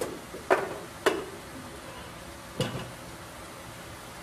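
Kitchenware knocking: a metal pot and utensils clattering in four sharp knocks, the loudest about half a second in and the last after a longer pause.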